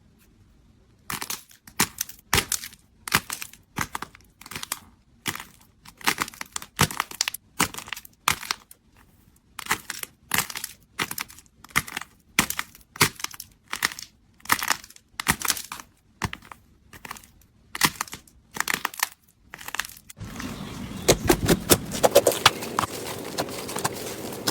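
Slime being squeezed and pressed by hand, giving clusters of quick crunchy crackles, one squeeze after another. About 20 seconds in it changes to a denser, continuous crackling and squishing.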